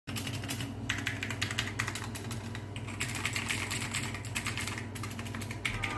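Mechanical keyboard being typed on quickly, a steady run of key clicks and clacks from a Ziyou Lang T8 (CT68) budget mechanical keyboard.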